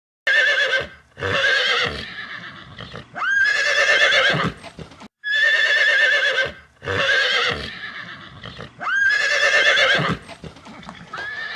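Horse whinnying over and over, loud shaky neighs, several of them swooping up at the start. About five seconds in the sound cuts off abruptly and the run of whinnies starts again.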